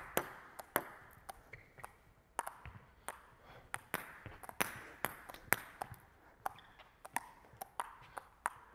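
Table tennis balls being bounced up off bats: a run of sharp, light clicks at about two to three a second, irregular where two players' taps overlap.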